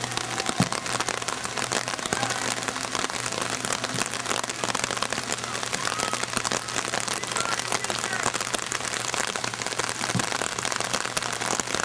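Steady patter of rain, a dense crackle close to the microphone, with no break.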